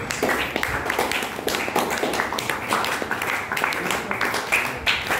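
A room of schoolchildren applauding: many hands clapping steadily, not in unison.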